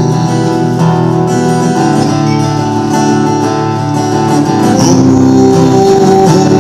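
Acoustic guitar strummed, chords ringing, in the instrumental ending of a folk song.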